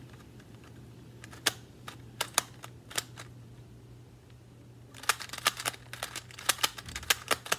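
Plastic 2x2 twisty puzzle being turned by hand, its layers clacking as they snap into place. There are a few spaced clicks at first, then a quick run of turns from about five seconds in, over a low steady hum.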